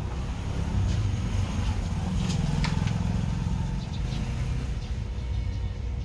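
A car engine running steadily, with a few light clicks about two and a half seconds in.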